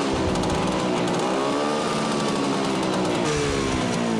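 Vespa scooter's small engine revving, its pitch rising and falling several times as the throttle is worked.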